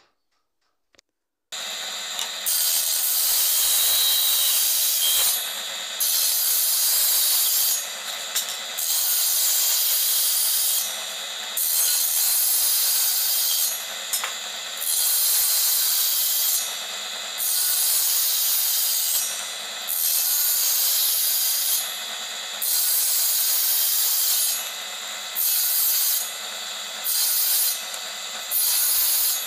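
A saw cutting through wood, cutting a cross shape out of a board: a steady rasping that starts suddenly about a second and a half in and drops off briefly every two to three seconds.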